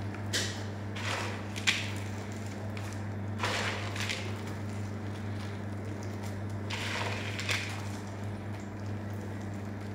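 Cashew pieces scooped by hand from a plastic bowl and scattered over raw semolina batter in a round metal tray: brief rustles at intervals and one sharp click, over a steady low hum.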